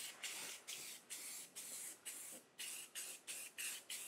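Aerosol spray paint can spraying in short hisses, about three a second, with brief gaps between them as the can is swept back and forth.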